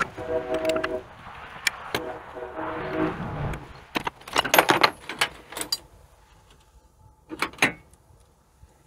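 Ratchet wrench being worked on engine bolts, buzzing in three short spells in the first few seconds. Then comes a run of sharp metal clinks and clanks from hand tools, and two knocks near the end.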